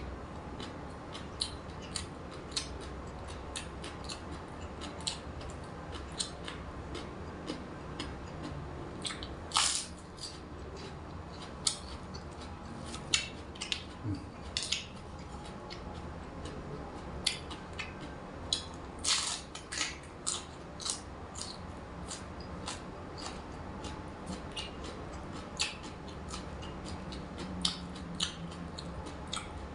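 A person eating: irregular crisp clicks and crunches of biting and chewing food, with a few louder crunches through the middle.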